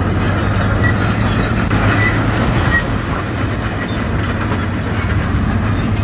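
Bulldozer's diesel engine running steadily as the machine works, with short high squeaks from its steel tracks now and then in the first half.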